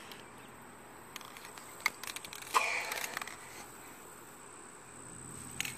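Hands working at the stuck plastic cap of a spray paint can: a sharp click about two seconds in, a short scraping rasp half a second later, and a few more clicks near the end.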